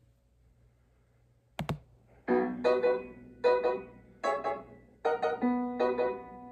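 Piano playing an introduction: a chord struck about once a second, each ringing and fading, starting a little over two seconds in. Just before it, about one and a half seconds in, comes a sharp double click.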